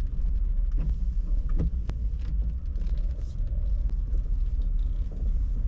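Car driving on a city street: steady low rumble of engine and road, with scattered faint ticks.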